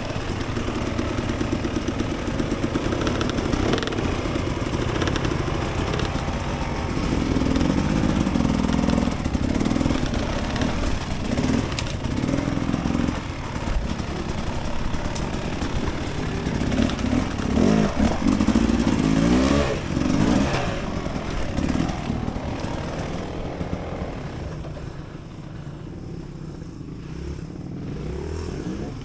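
Dirt bike engine running at low to middling revs, the pitch rising and falling as the throttle is worked; it grows quieter for the last few seconds.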